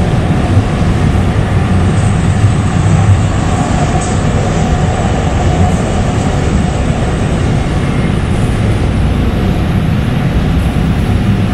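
Steady rumble and wheel-on-rail noise heard from inside a Kinki Sharyo SLRV light rail car as it runs along the track.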